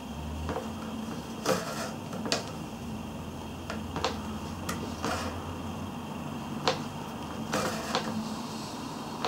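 Hand saddle stitching in leather: needles pushed through pre-punched stitch holes and the thread pulled through and tightened, giving scattered light clicks and brief rasps.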